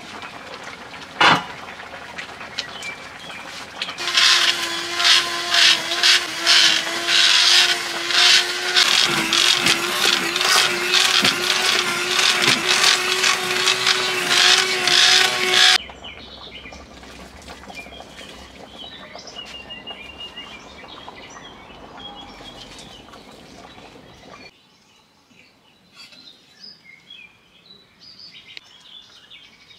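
A sharp knock, then a small electric motor runs loudly for about twelve seconds with a steady hum and a fast, regular rattle, and stops abruptly. Afterwards birds chirp faintly.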